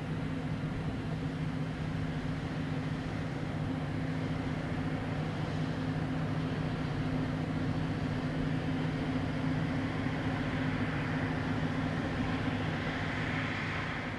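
Steady low drone of a river boat's diesel engine, with two steady hum tones running throughout. A rushing noise builds near the end.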